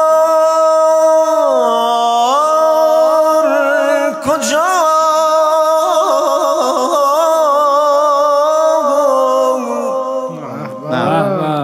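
A man's solo voice chanting in long, melismatic phrases into a microphone. He holds high sustained notes with wavering ornamental turns; the pitch steps down about a second and a half in, climbs back a second later, and dips briefly and more softly near the end.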